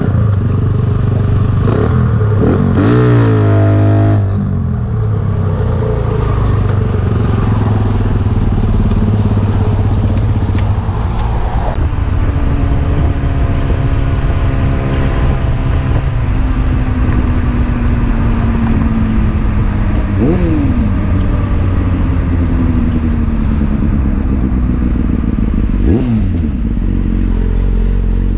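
Motorcycle engine heard from the rider's seat while riding in traffic, with wind and road noise. The pitch climbs and falls with the throttle: a rising rev near the start, then a long slow fall in pitch, and two quick rev blips near the end.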